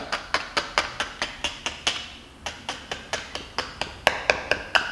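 Metal pick tapping and prodding against a Citroën 1.4 KFV cylinder head, a quick run of sharp clicks at about five a second with a short pause about two seconds in.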